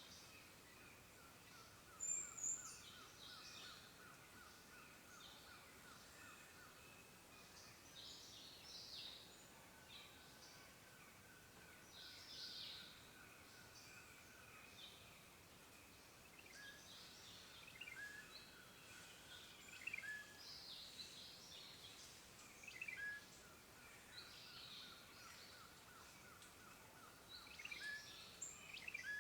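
Faint birdsong from several birds: short high chirps and call phrases every second or two over a faint, steady trilling.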